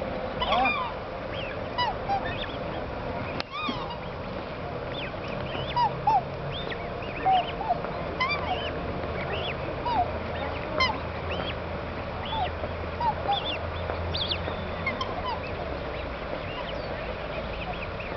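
Black swan cygnets peeping: many short, high, arched chirps, several a second at times, scattered irregularly over a faint steady hum.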